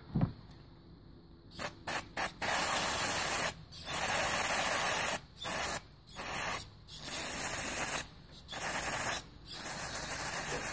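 Aerosol spray can hissing through its red extension straw in a series of bursts: three quick puffs, then longer sprays of about a second each with short pauses between.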